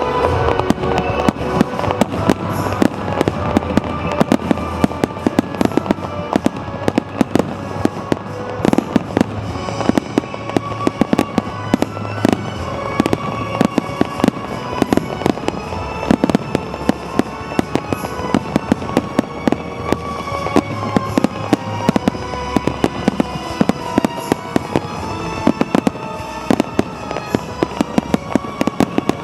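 Fireworks bursting in rapid succession, a continuous run of sharp bangs and crackles several times a second, with music playing underneath.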